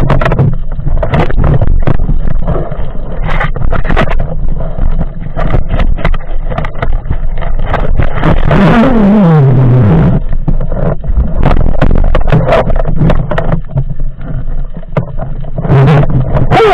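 Underwater sound picked up through a camera housing as a spearfisher swims: a steady low rumble with frequent clicks and knocks from the gun and housing being moved. About halfway through, a tone falls in pitch over a couple of seconds.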